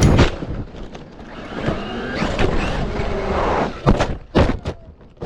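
Traxxas Maxx electric RC monster truck running, with tyre and drivetrain noise picked up by a camera mounted on it. Several sharp knocks come in quick succession a little before the end.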